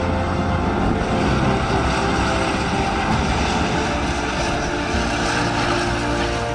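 Namer tracked infantry fighting vehicle driving at speed over dirt, its engine and tracks making a steady, loud noise.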